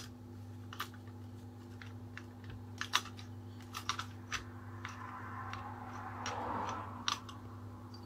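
Scattered light metallic clicks and taps from a small four-stroke engine being worked on by hand, with a rasping scrape about five to seven seconds in.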